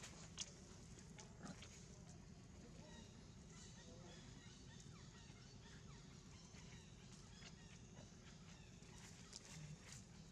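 Near silence: faint outdoor ambience with scattered soft clicks and ticks, the sharpest one about half a second in and a few more near the end.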